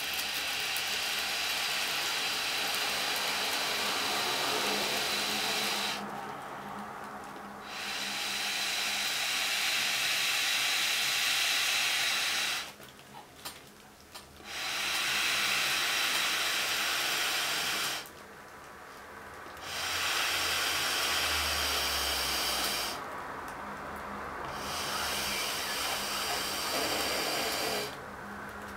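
Air hissing through a thin tube into a plastic carrier bag as it is inflated. The hiss comes in long runs of several seconds, broken four or five times by short pauses.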